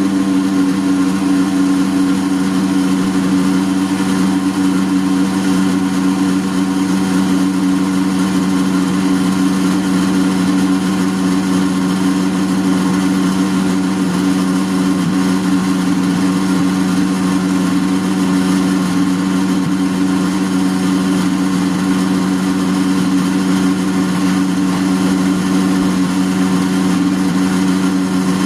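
Frigidaire dishwasher running with a loud, steady, mechanical hum: the noise the machine is making.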